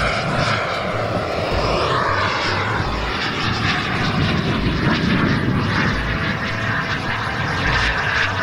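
Turbine engine of a 210-size radio-controlled delta-wing jet running as the model flies past, a steady rushing whine whose tone shifts slowly as it passes.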